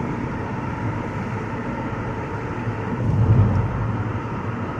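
Road and engine noise of a moving car heard from inside the cabin: a steady rumble that swells briefly about three seconds in.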